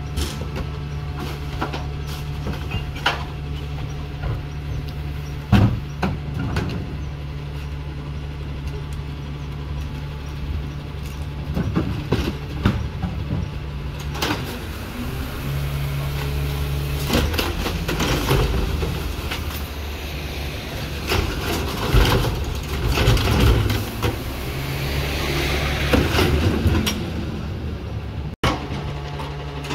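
Rear-loader garbage truck engine idling steadily, with scattered knocks and bangs as wheeled trash carts are tipped into the hopper and their lids clap. The clatter grows busier and louder in the second half.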